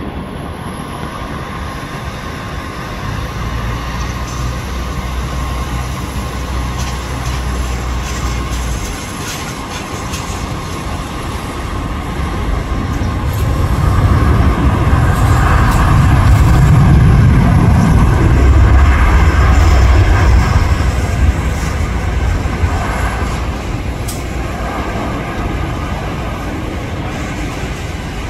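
Jet engine noise of an ANA Boeing 787-9 airliner rolling along the runway after touchdown. A low rumbling roar swells to its loudest around the middle and then eases off.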